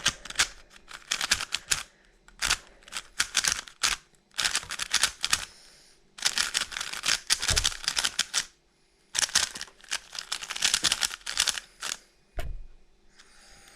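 Moyu Weilong WRM 3x3 speedcube being turned fast, its plastic layers clacking in several rapid flurries with short pauses between them. The cube feels dry, as if it has almost no lube. A single low knock comes near the end.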